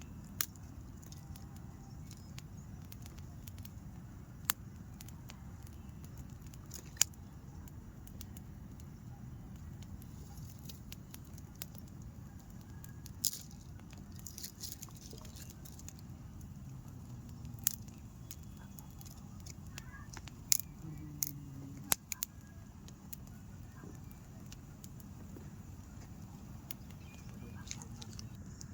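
Wood fire crackling, with sharp pops every second or two, over a steady low rumble.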